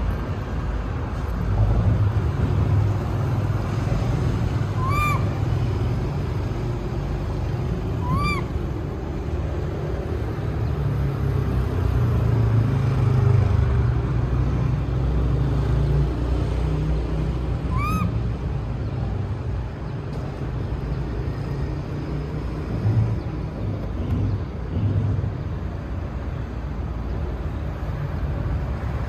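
Steady low rumble of street traffic, with three brief high-pitched calls that rise and fall, at about five, eight and eighteen seconds in.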